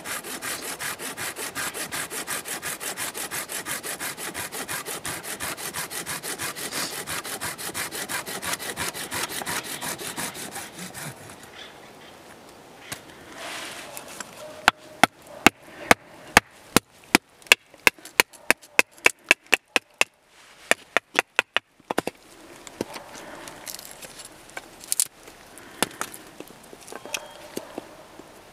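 A folding pruning saw cutting through a dead branch with quick, even strokes for about eleven seconds. Then a knife is batoned through a short piece of the wood: a fast run of sharp wooden taps on the blade's spine, about five a second, followed by fainter knife cuts and scraping near the end.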